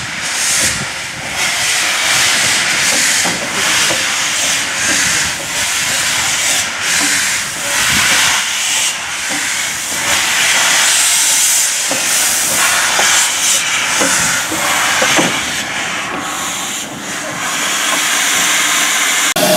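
Andrew Barclay 0-4-0 saddle tank steam locomotive moving off slowly with its cylinder drain cocks open: loud, steady steam hissing with slow, uneven exhaust beats.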